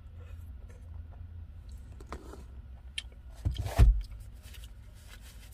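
Steady low rumble of a car's cabin with the engine running, with small clicks and rustles of handling food and a heavy thump about three and a half seconds in.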